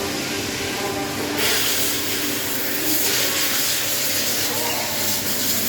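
Steady hissing noise that grows brighter about a second and a half in.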